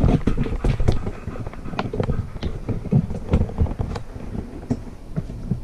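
Irregular clicks, knocks and rustling over a low rumble, with no motor running.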